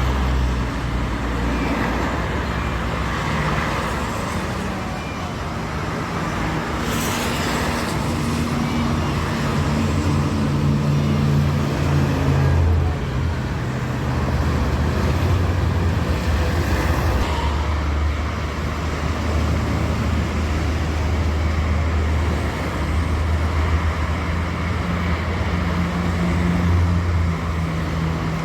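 Road vehicle engines and tyre noise in traffic: a steady low engine drone that shifts slowly in pitch, under an even rush of road noise.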